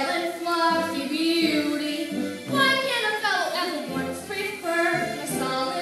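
A woman singing through a handheld microphone over musical accompaniment with a steady low bass line.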